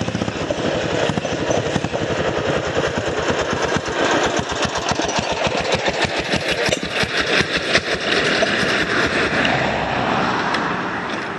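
Racing lawn mower engine with a loud exhaust, running hard in high gear as the mower passes by, its rapid firing pulses growing louder through the middle and fading away near the end.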